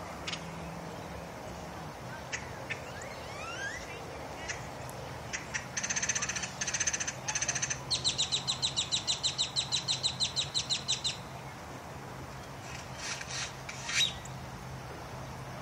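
Birds calling: scattered rising chirps, then about halfway through a quick run of calls that turns into an even rattle of about eight notes a second lasting some three seconds, with more calls near the end. A steady low engine hum runs underneath.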